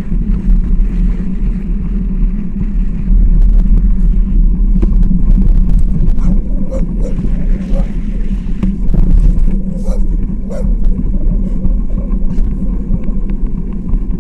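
Wind rumbling on the microphone of a moving bicycle rider, a loud steady low rumble, with scattered short clicks and rattles from the bike.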